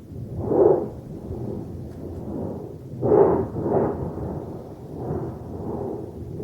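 Rolling thunder: a continuous low rumble that swells into louder peals about half a second in and twice more around three to four seconds in.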